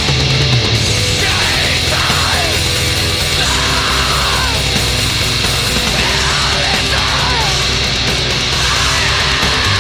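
Black metal recording: loud, dense distorted music at a constant level, with harsh cries that slide downward in pitch again and again.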